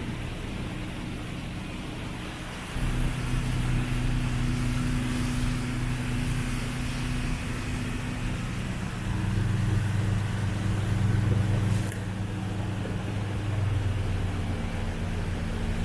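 A boat's motor running steadily under way, a low hum over a constant hiss. It gets louder about three seconds in, louder again around nine seconds, and eases back a little near twelve seconds.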